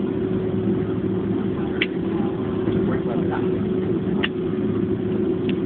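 Steady cabin drone of a Boeing 767-300 on the ground after landing, with a constant low hum, a few brief clicks and faint passenger voices underneath.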